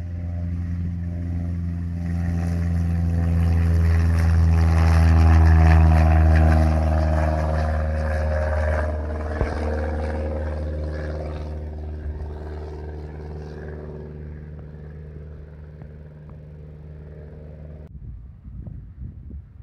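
Single-engine Cessna light plane's piston engine and propeller at full takeoff power, growing louder as it passes and then fading as it climbs away, its pitch dropping. Near the end the engine sound cuts off suddenly, leaving wind rumble on the microphone.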